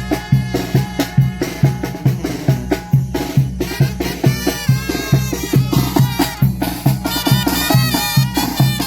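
Mexican brass band playing a ranchera: horns carry the melody over a steady oom-pah bass beat, about two and a half bass notes a second.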